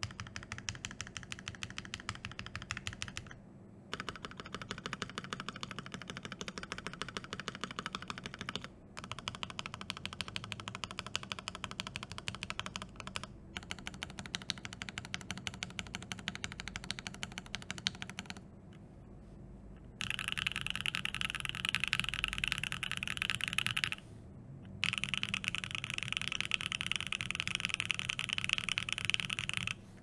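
Typing on an Obliterated75 SE mechanical keyboard with lubed Alpaca linear switches on an FR4 plate and GMK Hyperfuse keycaps: a rapid run of keystroke clacks broken by a few short pauses. About two-thirds of the way in, the typing becomes louder and denser.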